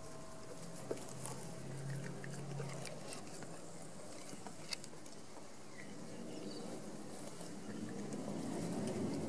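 Great Dane puppy chewing and tearing at grass: faint, irregular crunching clicks.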